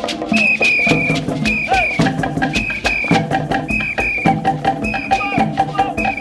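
Upbeat music with steady percussion and a repeating high, whistle-like melody.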